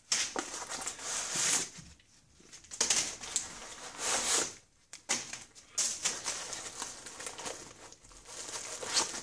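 Plastic bag and cardboard mailing box rustling and crinkling as they are handled and unpacked, in several irregular spells with short pauses between.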